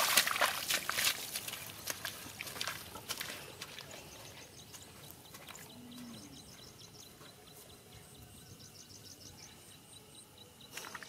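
Footsteps splashing and sloshing through shallow muddy floodwater, fading away over the first few seconds. Then quiet outdoor air, with a bird chirping in two quick runs of high notes.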